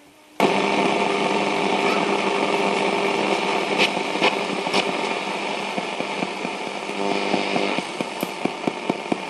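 Bush TR130 radio's speaker hissing with static between stations, with a steady interference whine in it. It comes on abruptly about half a second in. Crackling clicks join it near the end as the set is tuned.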